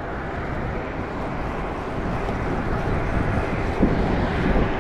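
Steady wind rush on the microphone and road noise while riding a bicycle along a city street, with a short thump near the end.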